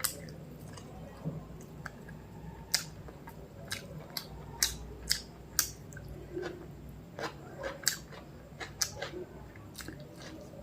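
A person chewing food close to the microphone: irregular sharp, wet clicks and smacks of the mouth and teeth, a dozen or so scattered through.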